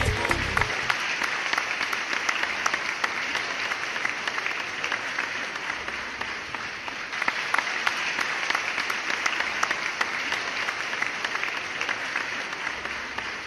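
Crowd applause: dense, steady clapping that dips a little and swells again about halfway through.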